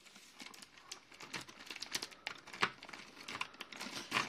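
Plastic packaging crinkling and rustling in quick, irregular crackles as it is handled, with the next figure being unwrapped.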